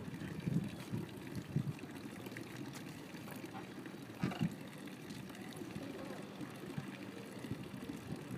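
Water running steadily from a cast-iron public drinking fountain's spout into its stone basin, with a few short, louder low sounds about half a second, a second and a half, and four seconds in.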